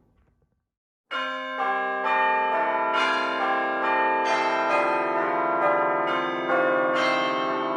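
Church bells ringing: a run of strikes, each ringing on and overlapping the next, starting about a second in.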